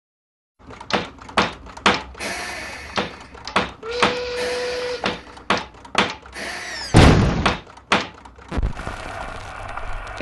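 A string of sharp knocks and clatters, with a heavier thud about seven seconds in.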